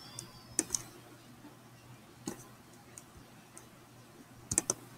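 Scattered computer clicks: a pair about half a second in, single clicks around two and three and a half seconds in, and a quick run of three near the end, over a faint steady hum.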